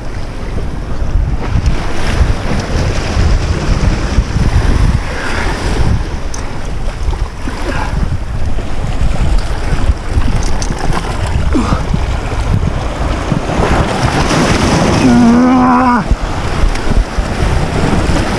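Wind buffeting the microphone over the wash of surf against jetty rocks. About fifteen seconds in comes a short, wavering, pitched sound lasting about a second.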